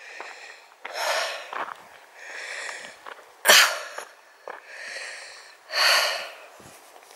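A person breathing hard, a run of loud, hissy breaths about a second apart with one sharper puff near the middle, from the exertion of climbing a steep hill path.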